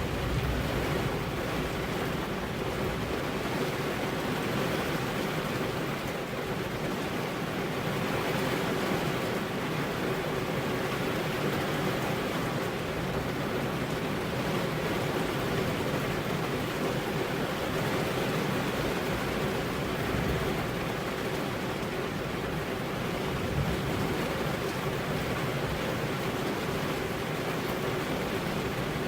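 Steady rainfall, an even unbroken hiss with no single drops or thunder standing out, over a faint steady hum.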